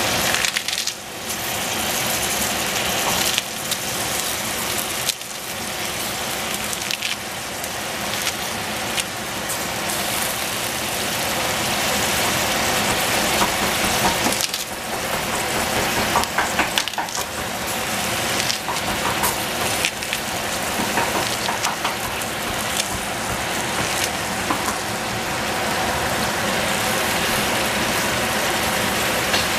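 Vegetables frying in a hot pan: a steady sizzle with fine crackles, dipping briefly a few times.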